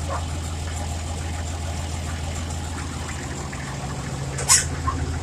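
Farm tractor engine running steadily while the tractor creeps along in low first gear. A short, sharp sound cuts through about four and a half seconds in.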